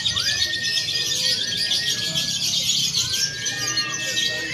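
Many caged lovebirds chattering at once in fast, shrill, continuous trills, the long chatter sung in lovebird contests. Several long whistled notes sweep up and then hold over the chatter.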